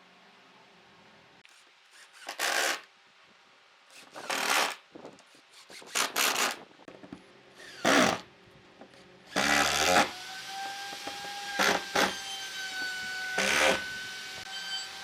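Woodworking shop work: a series of short, loud, rasping strokes about every one and a half to two seconds. From about ten seconds in, a power tool's motor starts and runs with a steady whine, with a few more strokes over it.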